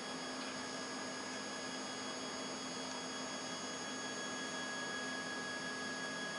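Heidelberg Saphir HiRes flatbed scanner running as its motorised film tray slides out, a steady mechanical hum with several constant high whining tones.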